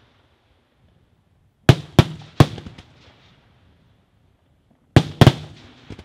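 Daytime aerial fireworks shells bursting overhead in sharp bangs: a quick group of three about two seconds in and a pair near the end. Each group dies away in echoes.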